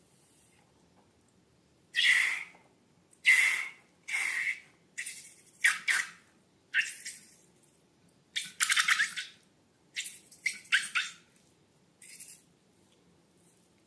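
Slime being squeezed and worked by hand, giving a series of about ten short squelches with crackling air pockets, some in quick pairs.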